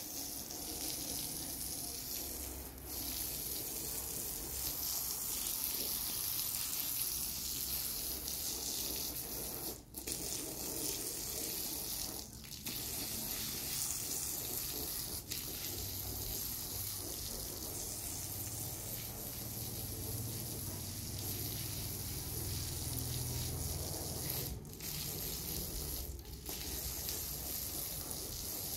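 Garden hose spraying a steady stream of water onto a rug and tiled paving, a continuous hiss and spatter with a few brief breaks.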